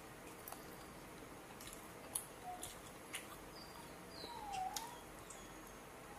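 Small clicks of eating by hand, with several brief faint high squeaks and chirps from an animal, one dipping and rising in pitch a little past four seconds in.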